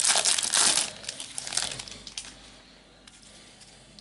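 Shiny plastic wrapper of a trading-card packet crinkling as it is opened and the cards are pulled out. The crinkling is dense at first and dies away after about two seconds.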